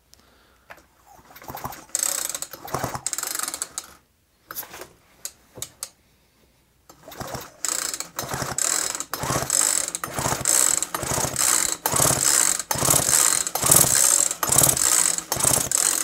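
Poulan Woodshark chainsaw's recoil starter being pulled, the rope whirring out and the two-stroke engine spinning over freely with its spark plug out for a spark check. There is one pull about two seconds in and a few light clicks around five seconds, then a quick run of back-to-back pulls from about eight seconds on.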